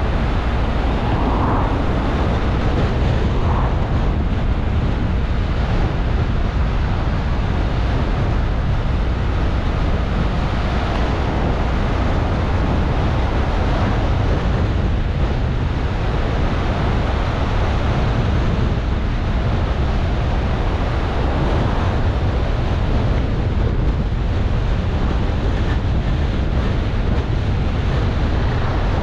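Steady road and wind noise of a car driving: a constant deep rumble under a rushing hiss that never lets up.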